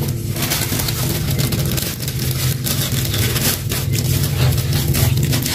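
Clear plastic bag rustling and crinkling steadily as large crackers are pulled out of it, over a steady low hum.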